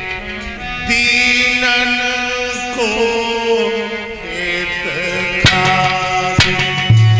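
Devotional chanting: a male voice drawing out long sung notes that glide in pitch over a steady held instrumental drone. A few sharp drum strokes come near the end.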